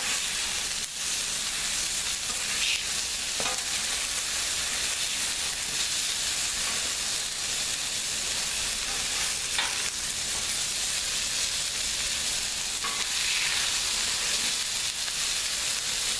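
Burgers and butter-sauteed mushrooms and onions sizzling steadily on a Blackstone flat-top griddle. A few short scrapes of a metal spatula on the griddle top come as the burgers are flipped.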